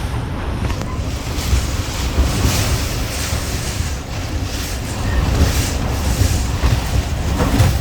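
Hurricane-force wind blowing hard in gusts, with heavy wind buffeting on the microphone.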